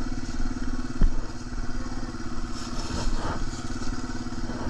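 Off-road motorcycle engine running at low, steady revs, with a single thud about a second in.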